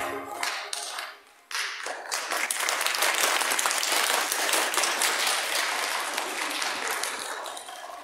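Backing music's last note dying away in the first second, then an audience applauding, starting about two seconds in and fading near the end.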